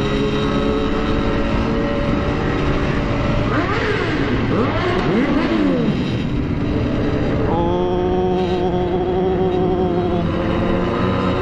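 Two-stroke Kawasaki Ninja RR engine running under way, heard from the rider's seat. About four seconds in, several engine notes sweep up and down across one another; about seven and a half seconds in, the pitch jumps up and holds for a couple of seconds.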